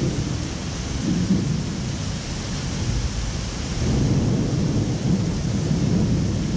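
Rolling thunder rumbling low, growing louder about four seconds in, over a steady hiss of rain.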